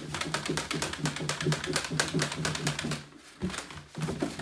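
A lidded plastic tub of dry boilie base mix and egg-albumin hardener powder being shaken hard to blend them, a fast, even rattle of the mix hitting the tub's walls. The shaking stops about three seconds in, followed by a couple of lighter knocks.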